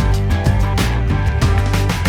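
Rock background music with guitar and a steady drum beat.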